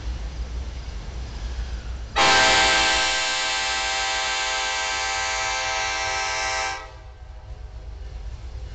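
Air horn of an approaching Norfolk Southern locomotive blowing one long, steady chord of about four and a half seconds. It starts suddenly about two seconds in and cuts off sharply. A low rumble from the approaching train runs underneath.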